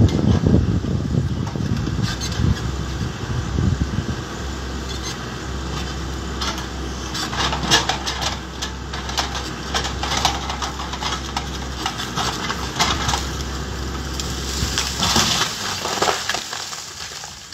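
Backhoe loader's engine running while its arm pushes against a tall tree, with repeated sharp cracking and snapping of wood as the tree gives way. The cracking is densest just before the tree falls onto the machine about sixteen seconds in.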